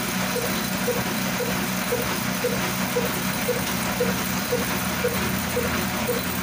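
Diamond Daska 22 HP slow-speed single-cylinder diesel engine (a Pakistani 'kala engine') running steadily, turning its heavy flywheel to drive a flour mill. It beats evenly at about two firing knocks a second over a steady low hum.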